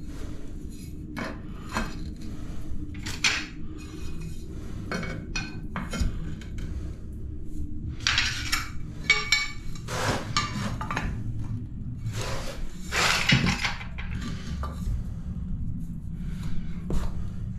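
Ceramic subway tiles clinking and tapping against each other as they are picked up and set into adhesive on the wall, in irregular clicks with a few busier clusters, over a steady low background rumble.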